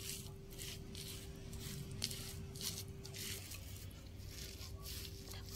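Stone pestle (ulekan) rubbing and pressing grated young coconut into chili sambal in a stone mortar (cobek): faint, irregular, repeated scraping and crunching strokes.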